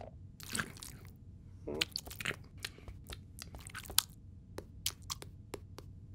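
Cartoon sound effects of a kitten crunching and chewing through broken debris: a run of short, irregular crunches and clicks, with a short pitched cry about two seconds in.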